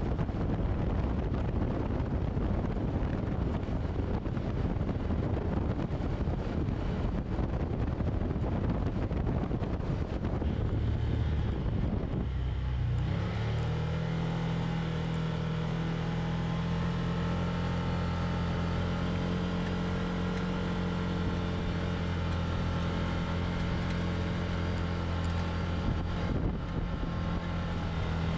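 Side-by-side UTV under way: rough tyre and wind noise on the gravel lane for the first dozen seconds, then the engine's steady drone comes through clearly for the rest.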